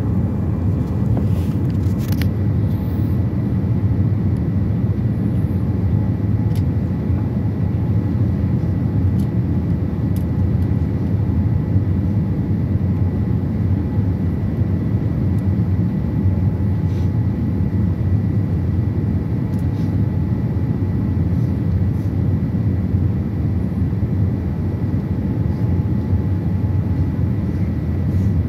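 Airliner cabin noise during descent on approach: a steady low roar of the engines and airflow heard from inside the cabin, with a faint steady whine above it.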